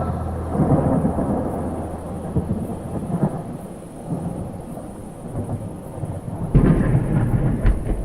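Thunder rumbling, then a sudden, loud close thunderclap about six and a half seconds in, followed by a second sharp crack shortly after.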